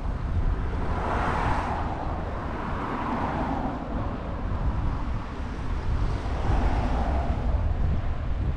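Wind buffeting the microphone outdoors, a constant low rumble, with broad rushing swells about a second in, again around three seconds, and near seven seconds.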